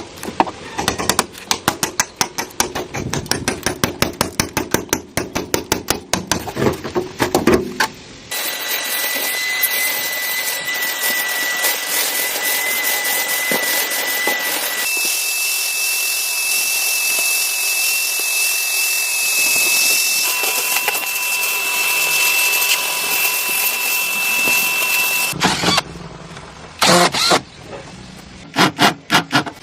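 Workshop tool sounds: rapid knocking for about eight seconds, then a steady high-pitched hissing whine from a power tool for about seventeen seconds, its pitch stepping up partway through, then a few irregular knocks near the end.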